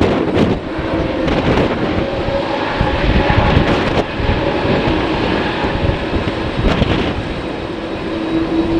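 Airliner jet engines running with a steady tone, heard through a heavy, gusting wind rumble on the microphone.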